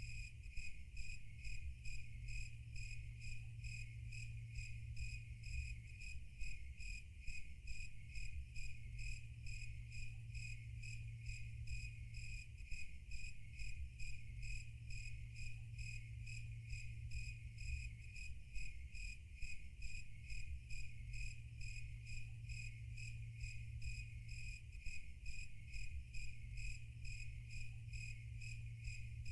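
Crickets chirping in an even, rapid pulse, over a low steady hum.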